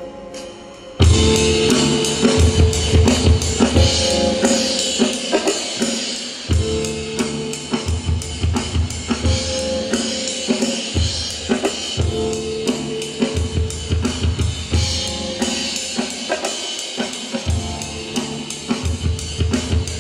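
Dance music over a PA system. A soft melodic intro gives way about a second in to a loud, heavy drum beat with bass, which drops out briefly twice, near the middle and again near the end.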